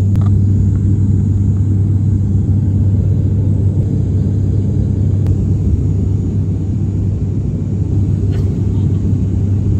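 Steady low drone of a turboprop airliner's engines and propellers at cruise, heard inside the passenger cabin, with one strong unchanging low tone under the rumble.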